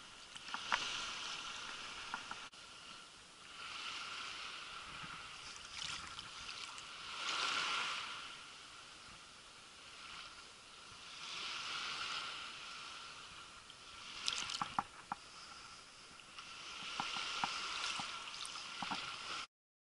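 Shallow sea water lapping and sloshing in swells that rise and fall every few seconds, with a few small sharp splashes and drips; a faint steady high tone runs beneath, and the sound cuts off suddenly near the end.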